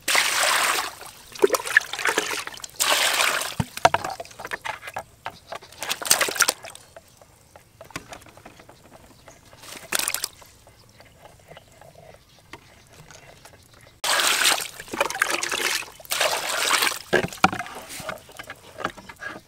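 Water sloshing and splashing in a basin as fish are washed in it, stirred and pushed down under a strainer basket, in several loud bursts with quieter gaps between.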